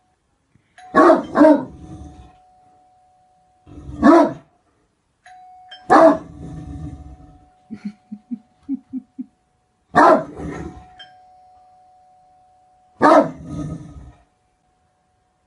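Great Dane barking: deep single barks, a quick pair about a second in and then one every few seconds, six in all, with a few short low huffs in between. A thin steady tone sounds faintly in the gaps between barks.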